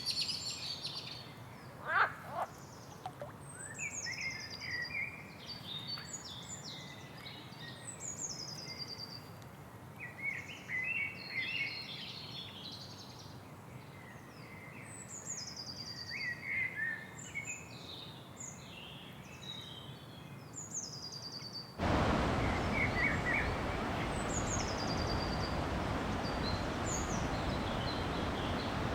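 Rainforest birds calling over a faint hiss: a high whistled call that falls in pitch, repeated every few seconds, among busy chattering calls. About three-quarters of the way through, a steady, louder rushing hiss cuts in abruptly, with the birds still calling above it.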